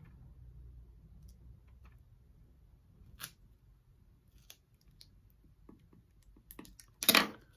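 Faint scratching and small clicks of a craft weeding hook picking at adhesive vinyl letters on a clear plastic transfer sheet, with a sharper click about three seconds in and a louder brief rustle of the sheet near the end.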